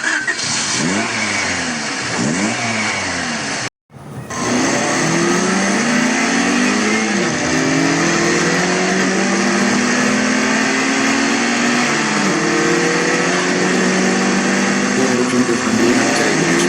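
Motor vehicle engine revving in short up-and-down bursts, then, after a brief cut-out, accelerating hard: its pitch climbs in long pulls and drops back several times as it shifts up through the gears.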